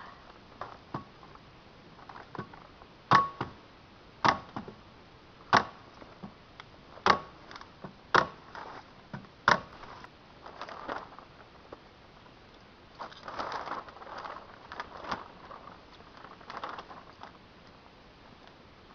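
About six sharp metallic tool strikes with a slight ring, roughly one a second, as the plastic sheeting is fastened to the greenhouse frame. They are followed by irregular crinkling and rustling of 6 mil plastic sheeting.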